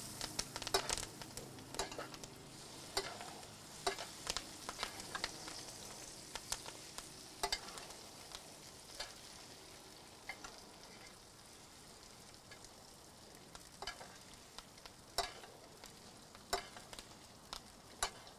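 Butter sizzling and spattering in a cast iron skillet as hot butter is spooned over a bone-in ribeye, with scattered sharp pops and clicks. The sizzle gradually fades over the first half.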